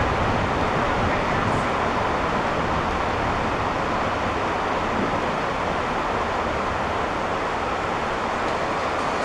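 Heavy rain pouring steadily on a garage roof during a thunderstorm: a loud, even hiss with no breaks.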